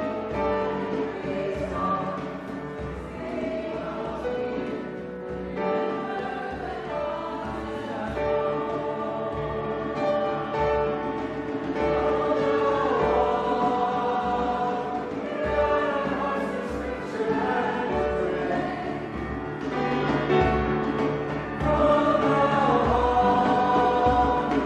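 A choir singing a hymn over steady held chords from an accompanying instrument.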